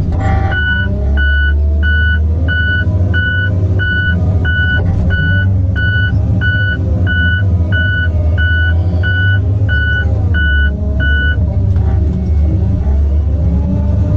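Tigercat log skidder's backup alarm beeping regularly, about three beeps every two seconds, while the machine reverses; the beeping stops about eleven seconds in. Underneath, the skidder's diesel engine runs steadily, heard from inside the cab.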